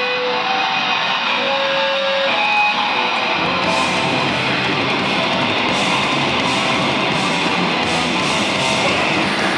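Live punk band with loud distorted electric guitars. Held, ringing guitar notes sound over a thinner backing at first, then about three and a half seconds in the full band comes in with drums and bass and plays on hard.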